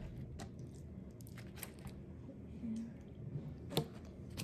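Soft wet squelches and small clicks of marinated pork pieces being handled and laid by hand onto banana leaves, with a sharper tick about four seconds in.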